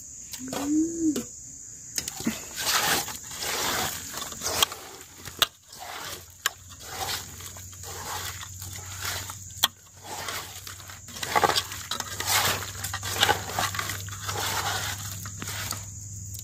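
Wet squelching and squishing of a hand working fish steaks through thick masala marinade in an aluminium pot, with a few sharp clicks. A brief rising-and-falling call comes under a second in, and a steady high insect chirring runs underneath.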